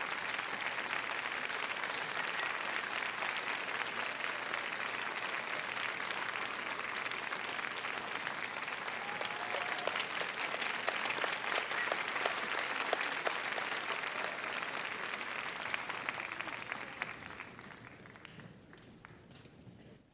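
Theatre audience applauding steadily, the clapping fading away over the last few seconds.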